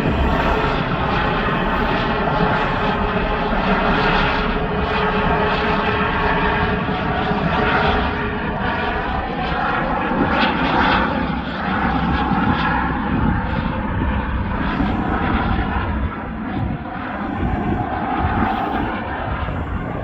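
Airbus H145 helicopter's twin turbine engines and rotors running close by: a steady whine over rotor noise, wavering a little in pitch and easing slightly near the end.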